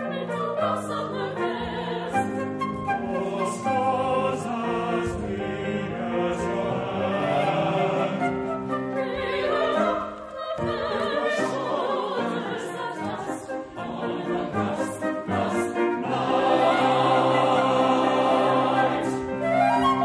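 Choir singing classical choral music in sustained, shifting chords. The sound dips briefly about halfway through and grows fuller and louder near the end.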